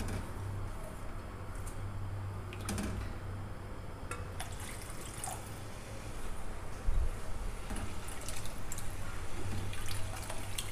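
Water being poured into a steel kadhai of fried masala and stirred in with a wooden spatula: sloshing, splashing liquid with a few light knocks against the pan, over a steady low hum. The splashing gets busier about seven seconds in.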